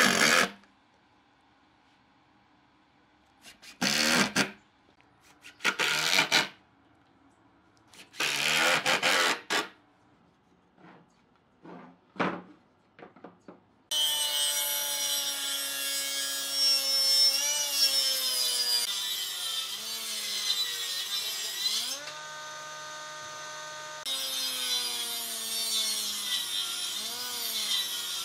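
A Makita cordless impact driver driving screws into pine in five short bursts. About halfway through, a combination woodworking machine's circular saw takes over with a continuous whine that drops in pitch as a board is fed through it, runs free briefly, then cuts again.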